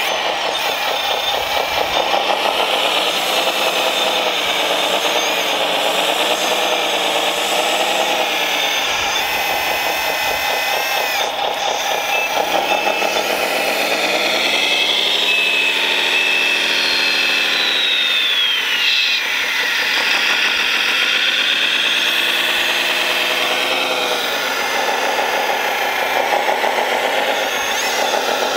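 Electric motors and hydraulic pump of a 1/14-scale RC wheel loader whining, the pitch rising and falling again and again as the loader digs into gravel and lifts its loaded bucket.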